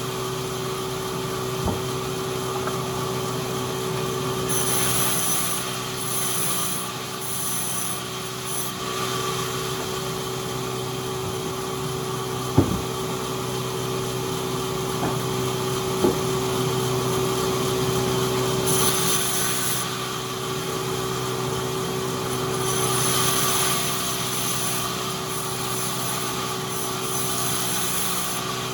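Sawmill machinery running steadily, a motor drone with a hiss that rises in several short stretches, and two sharp knocks in the middle.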